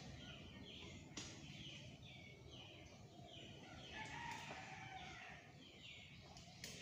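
Faint background birdsong: a run of short falling chirps, about two a second, with a few faint clicks.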